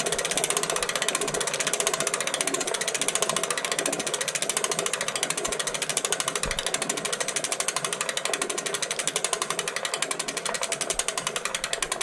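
Bicycle rear hub freewheeling as the wheel spins, its pawls clicking in a fast, even ratchet, with a repeating "ooo wuh, ooo wuh" sound under the clicks that the owner finds odd and cannot explain.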